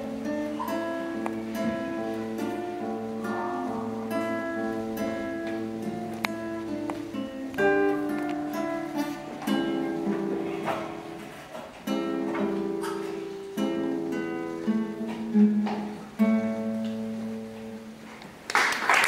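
Classical guitar played solo: a slow andante of plucked melody notes over held bass notes. Applause breaks out loudly just before the end.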